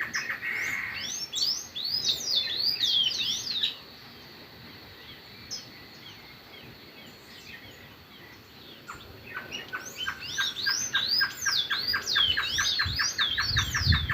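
Birds singing in two bouts with a lull of about five seconds between them. Each bout is a fast run of evenly repeated notes, about six a second, mixed with quick, high sweeping notes.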